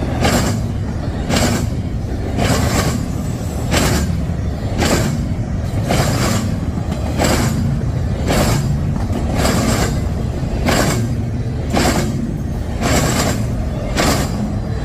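Wheels of a CSX intermodal freight train pounding across a railroad diamond crossing: sharp, loud metallic clacks, often in quick pairs, repeating a little over once a second as each set of wheels hits the gaps in the crossing, over a steady low rumble of the rolling cars.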